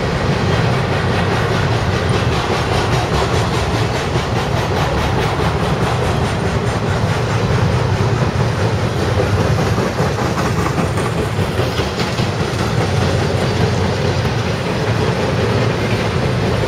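Intermodal freight train of highway trailers on flatcars passing close by: a steady, loud rumble of steel wheels on rail with a rhythmic clickety-clack.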